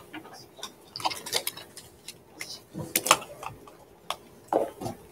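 Irregular light clicks and taps, the loudest a sharp pair about three seconds in, over a faint steady hum.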